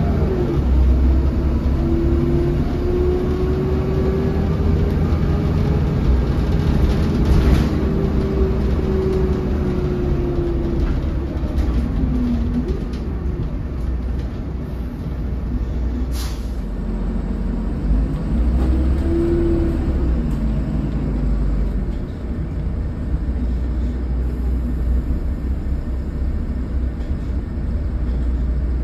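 Inside a 2008 MAN 16.240 Designline bus under way: steady low rumble of the diesel engine and road, with a whine that rises in pitch, holds, then falls away about twelve seconds in, and rises and falls again briefly near twenty seconds. A couple of sharp clicks are heard along the way.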